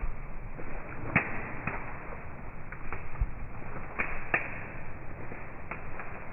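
A black Labrador running through leafy undergrowth, its rustling slowed down eight times and pitched deep, with a scatter of sharp cracks, the strongest about a second in and again after four seconds.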